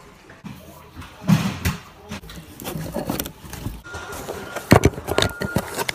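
White plastic pipe fittings handled and set down on a wooden table: an irregular run of knocks and clatters, the loudest a little under five seconds in.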